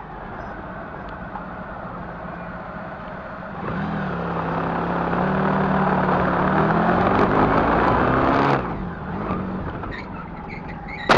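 Honda motorcycle engine running in traffic with wind and road noise, picking up revs about four seconds in, holding steady, then easing off at about eight and a half seconds. A sudden loud knock right at the end.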